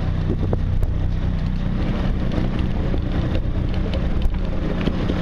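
Boat engine idling, a steady low hum, with wind and water noise over it.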